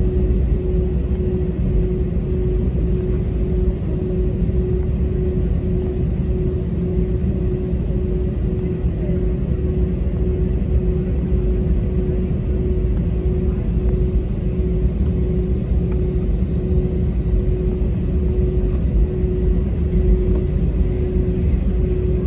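Cabin noise inside an Airbus A320-232 on the ground: the engines' steady low rumble at idle, with a constant mid-pitched hum over it.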